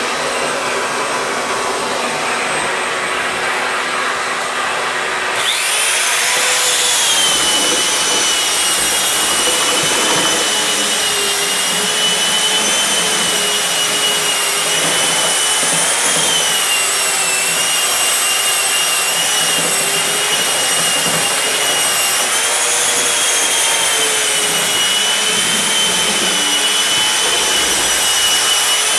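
Power drywall sander with a vacuum hose attached, running steadily as it sands dried joint compound on sheetrock. About five seconds in, a high whine joins the motor noise and wavers slightly in pitch.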